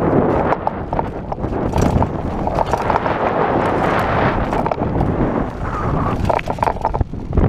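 Mountain bike riding fast down rocky dirt singletrack: a steady, irregular clatter of tyres on loose gravel and the bike rattling over rocks and bumps.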